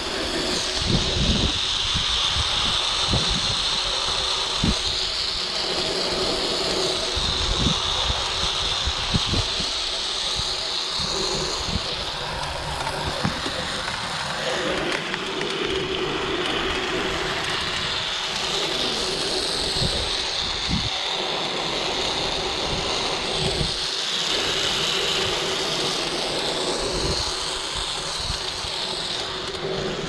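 Sky cycle, a bicycle hung from an overhead steel cable, rolling along the cable with a steady whirring hum, with wind gusting in low rumbles on the microphone.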